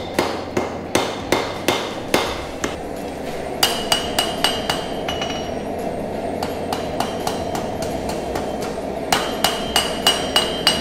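Blacksmith's hammer striking hot knife steel on an anvil, about three blows a second, in three runs with a pause of about four seconds before the last. The blows in the second and third runs ring with a high metallic tone from the anvil.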